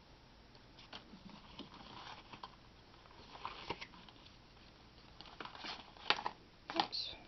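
Card-stock pages and tags of a spiral-bound journal rustling and clicking as they are handled and turned, with a couple of sharper taps near the end.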